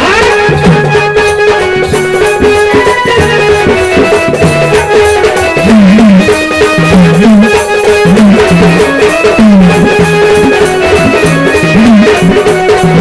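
Instrumental gondhal folk music, led by pitched hand drums playing a steady rhythm of bending low strokes under sustained melody tones.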